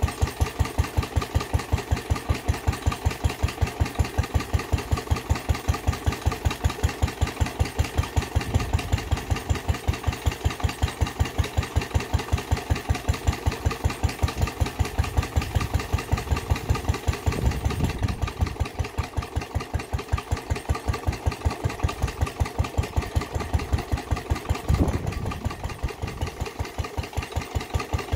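1932 Lister D type single-cylinder stationary engine running with a steady, even beat of firing strokes, under load from belt-driving three water pumps.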